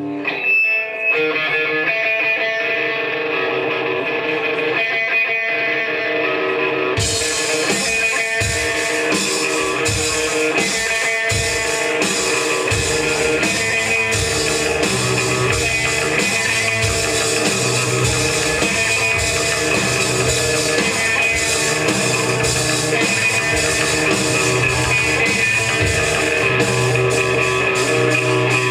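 Live punk rock band playing an instrumental passage: a guitar plays alone at first, then drums and bass come in about seven seconds in and the full band plays on loudly.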